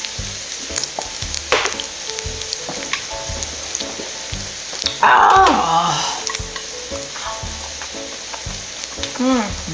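Pork pieces sizzling steadily on an electric grill plate. A short, louder burst comes about five seconds in.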